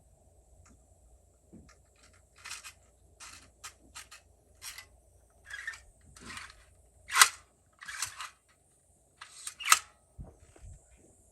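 Irregular string of short clicks and knocks, about a dozen, with two sharper, louder ones about seven and ten seconds in.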